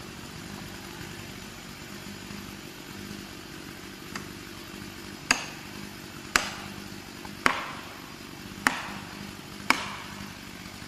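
Felling wedges being struck to tip a tree over: one light knock, then five sharp blows about a second apart, each with a short ringing tail. A steady engine hum runs underneath.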